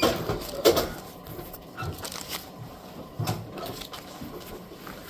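Paper bills rustling as they are picked up off a counter, with a few light taps and knocks. The rustling is loudest in the first second, and lighter knocks follow about two and three seconds in.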